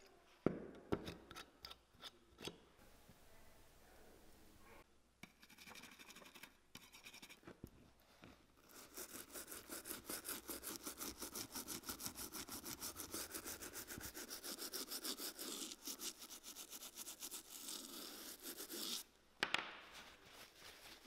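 Small bristle brush scrubbing a boot's rubber welt with liquid leather cleaner, in rapid, even back-and-forth strokes that start about nine seconds in and stop about ten seconds later. A few light clicks and taps come first as the cleaner bottle and tin lid are handled.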